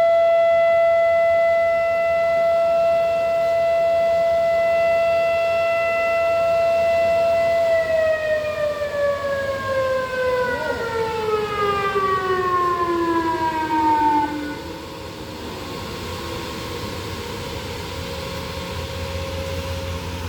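Outdoor civil defense warning siren sounding a steady single tone, then winding down and falling in pitch over about six seconds as it shuts off at the end of its monthly test.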